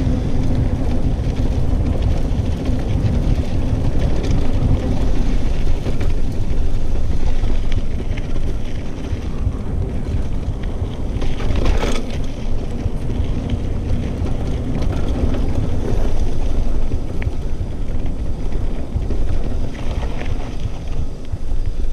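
Mountain bike rolling fast down a dirt singletrack: steady low rumble of wind buffeting the microphone mixed with tyre and frame rattle over the ground, with one sharp knock about twelve seconds in.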